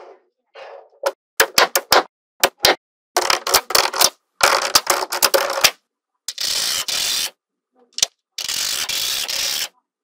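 Small metal magnetic balls clicking as they snap together: single sharp clicks at first, then quick runs of clicks, and twice a longer continuous clatter as a whole strip of balls snaps down onto the stack.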